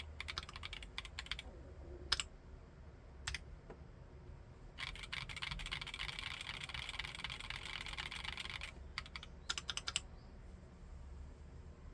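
Typing on a Keychron Q1 Knob aluminium mechanical keyboard with Haimu Midnight switches: short runs of keystrokes, single key presses about two and three seconds in, then about four seconds of fast continuous typing, a few last strokes, and the typing stops about ten seconds in.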